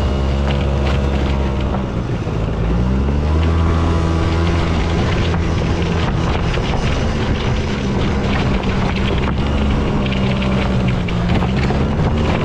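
Toyota Tundra pickup's freshly rebuilt engine running under way, its pitch climbing about two seconds in as the truck accelerates, then holding steady and rising a little again near the end.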